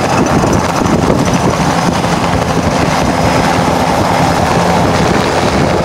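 Helicopter running on the ground, its rotor and engine making a loud steady noise with a faint steady hum underneath.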